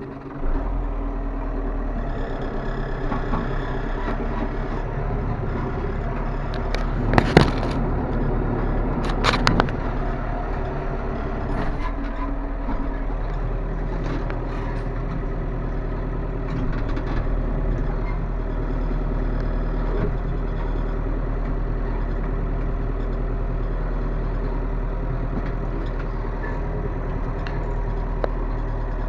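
A New Holland tractor's diesel engine running steadily while pulling a loaded manure trailer, heard from inside the cab. A few sharp rattles and clanks come about a quarter of the way through.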